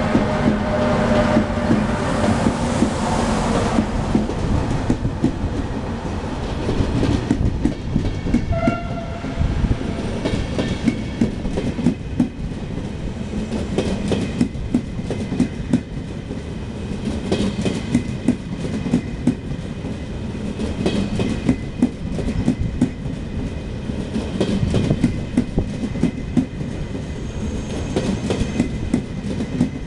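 An electric locomotive and a train of Russian Railways passenger coaches roll slowly past, arriving at a station: a steady rumble with a run of repeated clacks as the wheels cross rail joints. A hum from the locomotive is heard in the first few seconds, and a short squeal comes about nine seconds in.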